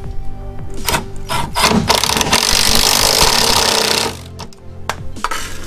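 Cordless impact wrench hammering a skid-plate bolt tight, running for about two seconds starting about two seconds in, with background music.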